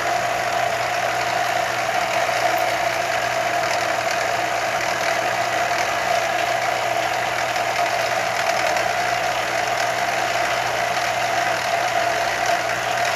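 Milling machine running with a steady whine as its drill bit feeds slowly down into a steel rifle receiver, cutting a blind screw hole for a scope base.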